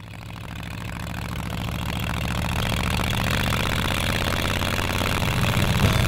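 Car engine idling with a steady low rumble, fading in from silence and growing louder.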